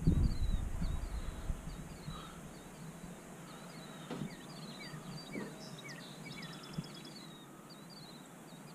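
Small birds chirping, with short high notes repeated throughout and a few downward-sliding calls in the middle. A low rumble of noise in the first second, and a couple of faint knocks.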